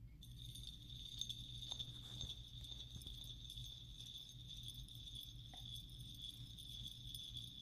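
A faint, steady high-pitched ringing tone over a low hum, with a couple of faint clicks.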